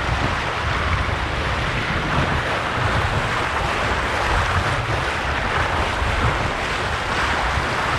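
Shallow seawater splashing and sloshing as horses wade through the surf, with steady wind buffeting the microphone.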